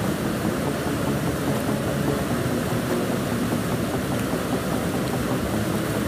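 Waterfall pouring into a pool, a steady rush of white water close by.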